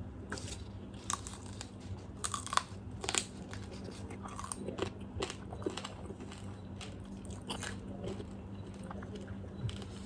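Close-up biting and chewing of fried quail, with short irregular crunches now and then. The quail is tender but not very crispy, in the eater's judgment.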